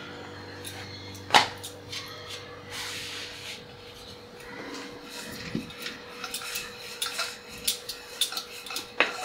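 Hands and a wooden rolling pin working a thin sheet of flour dough on a counter. There is one sharp knock about a second in, then soft rubbing as the dough is smoothed, then a run of light knocks and taps in the second half as the pin is rolled and set down. A faint steady hum runs underneath.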